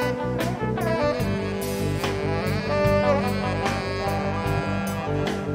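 Live band playing a jazz-rock instrumental: a saxophone carrying the melody in held, wavering notes over bass and a drum kit with steady cymbal strokes. The bass shifts to a lower note about a second in.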